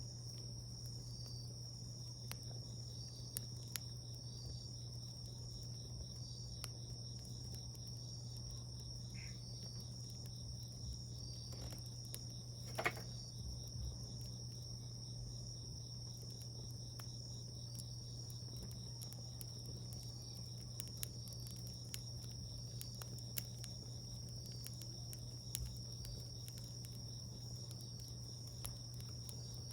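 Wood fire crackling with scattered small pops and one sharper pop about 13 seconds in, over a steady high-pitched insect trill and a low steady hum.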